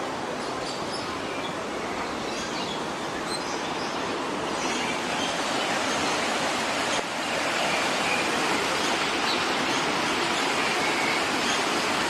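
Small stream cascading over rocks, a steady rushing of water that grows louder about halfway through, with a few faint high bird chirps in the first few seconds.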